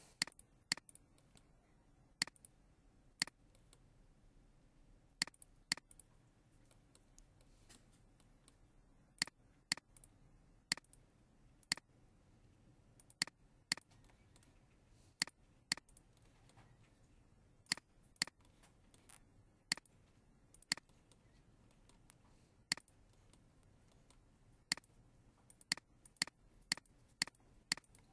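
Computer mouse clicking: several dozen sharp single clicks at irregular intervals, sometimes two in quick succession, over quiet room tone. Each click places a vertex of a line being traced in drawing software.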